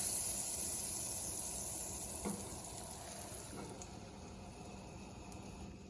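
Thin plantain slices sizzling in melted butter in a frying pan, the sizzle fading steadily, with one light knock a little over two seconds in.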